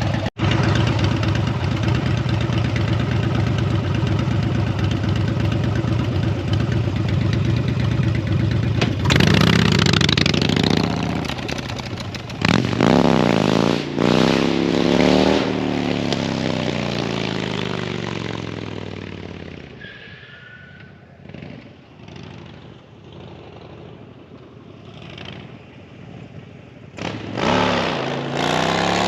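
Harley-Davidson V-twin motorcycle engine running at a steady idle, then revved up and down several times. It then fades to a faint running sound and comes back loud near the end.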